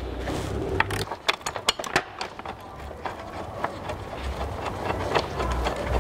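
Hand ratchet and socket clicking in short irregular runs as a bolt is backed out of the grille bracket, over a low rumble.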